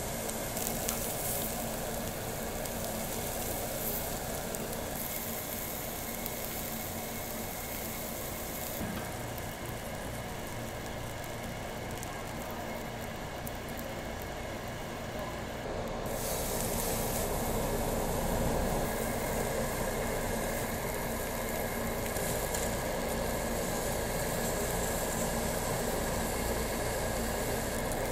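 Pork sizzling on a ridged tabletop grill plate: a steady hiss of frying fat over a constant background hum.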